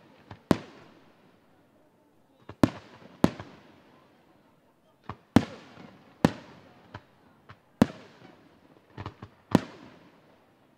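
Aerial firework shells bursting: a string of sharp bangs at uneven intervals, about seven loud ones with a few smaller pops between, each trailing off in an echo.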